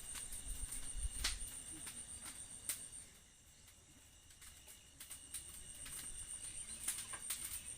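Insects chirping outdoors: a high, fast, evenly pulsing trill that fades out midway and comes back, with a few sharp clicks and some low wind rumble on the microphone near the start.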